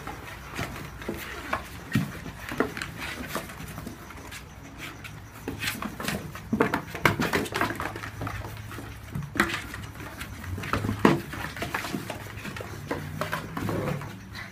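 A litter of whippet puppies scrabbling in and around a cardboard box: a steady, irregular clatter of claws scratching on cardboard and brick, with the box scraping and bumping, busier in the second half.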